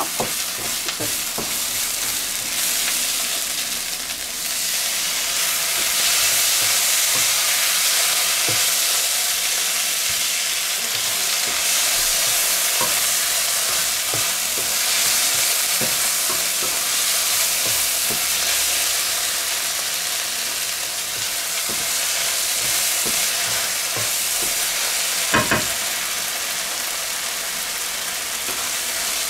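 Diced vegetables and tomato paste sizzling hard in a frying pan as a wooden spatula stirs and scrapes through them, with small clicks of the spatula against the pan and a louder knock near the end.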